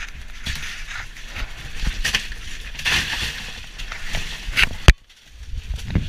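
Crushed ice and fish being scooped and shifted by gloved hands in a fish hold, an irregular crunching and scraping with scattered clicks. A single sharp knock about five seconds in.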